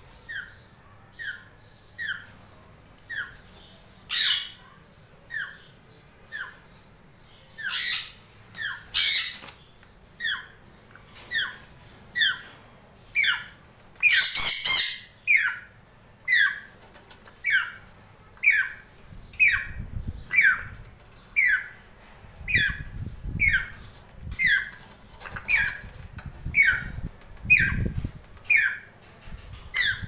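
African grey parrot chicks giving repeated begging calls, short cries that slide down in pitch, about three every two seconds, with a few louder, harsher squawks mixed in.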